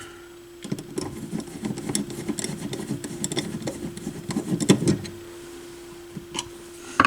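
Desoldering tool's small vacuum pump running for about four seconds with rattling clicks, clearing solder from a filter capacitor's leads so the cap can come out of the board. A steady low hum sits underneath and carries on after the pump stops.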